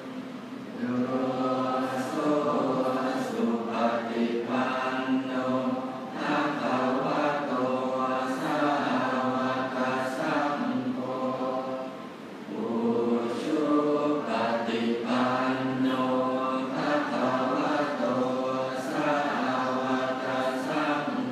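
Thai Buddhist morning chanting (tham wat chao): a group of monks chanting in unison on a fairly level pitch, with a brief pause for breath about twelve seconds in.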